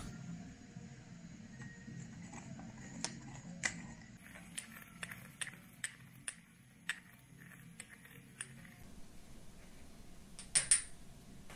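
Stone pestle knocking and grinding spice seeds in a stone mortar: a string of sharp clicks, about two a second, followed by two louder clinks near the end.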